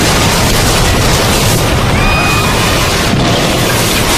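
Loud, continuous roar and rumble of a dramatised volcanic blast, the Krakatoa eruption's hot ash and debris surge tearing through a village. A brief high tone sounds about halfway through.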